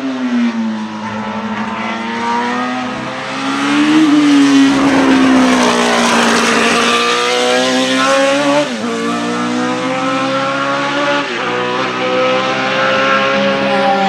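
Ford Cosworth DFV 3.0-litre V8 of a 1977 Tyrrell P34 Formula 1 car running on track. The engine note rises and falls through the corners, with two sudden drops in pitch, about nine and eleven seconds in, as it changes gear.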